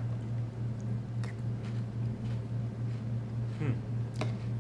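Steady low hum under a few faint clicks and crunches from a spoon in a cereal bowl and the chewing of crunchy Cap'n Crunch with Crunch Berries cereal.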